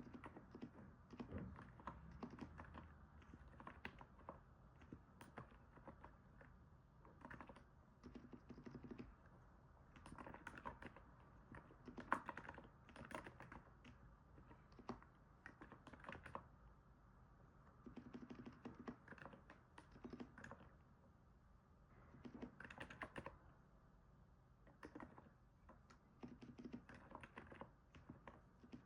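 Typing on a NIZ 68 Pro capacitive keyboard: quiet, soft keystrokes in quick runs with short pauses, a sound likened to stepping on snow.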